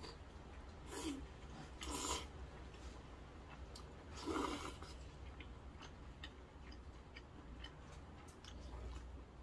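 A person slurping knife-cut wheat noodles from seafood broth in three short slurps, about one, two and four and a half seconds in, the last the loudest, with soft chewing and small clicks between.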